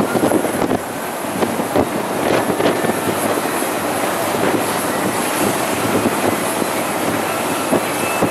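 Jet engines of a taxiing twin-engine regional jet at taxi power: a steady rumbling roar with a faint high whine, buffeted by wind on the microphone.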